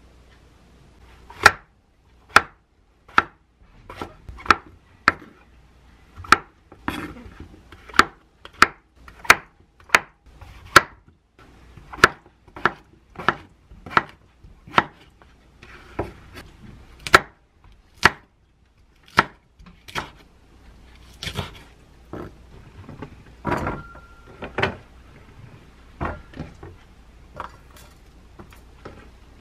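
Kitchen knife cutting through chunks of mushroom onto a wooden cutting board: a steady series of sharp chops, about one to two a second. After that come a few looser knocks and a short metallic ring.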